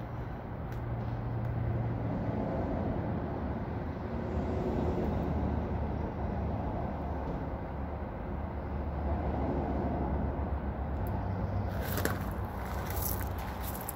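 Steady low outdoor rumble of background noise, with a few sharp clicks and scuffs near the end.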